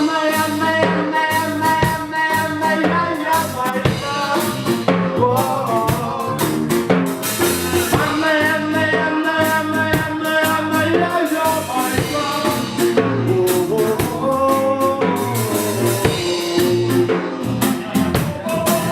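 Live band playing a reggae instrumental passage between verses: guitar and bass over a drum kit with rimshots on a steady offbeat groove.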